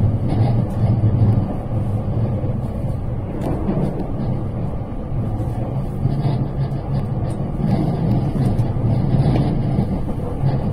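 Cabin noise inside a JR West limited express electric train running at speed: a steady low rumble from the running gear, heard through a phone pressed against the carriage window.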